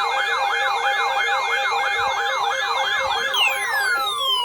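Electronic siren yelping: quick rising sweeps, about three a second, over steady tones. About three seconds in, a long falling glide starts and the yelping fades out.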